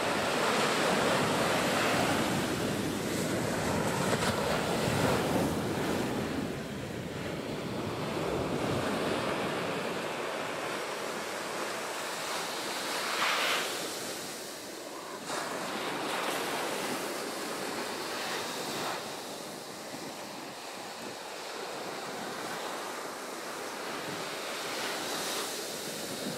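Ocean surf breaking and washing up the shore, with wind buffeting the microphone. The low wind rumble is strongest in the first several seconds, and a louder rush comes about halfway through.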